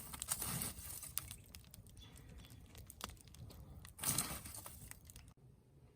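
Scattered light clicks and rustling handling noises, with a louder rustle about four seconds in, then an abrupt cut to near silence.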